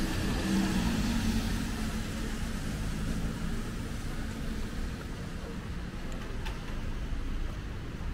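A car driving past on a wet road: engine hum and tyre hiss that fade after the first couple of seconds, over a steady low rumble of city traffic.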